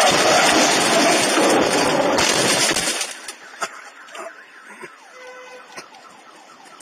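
Loud steady rushing noise, such as road and wind noise in a moving vehicle, cutting off abruptly about three seconds in. After it comes quieter sound with faint wavering siren tones and a few light clicks.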